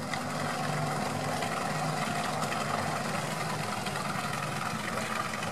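Off-road vehicle engine idling steadily.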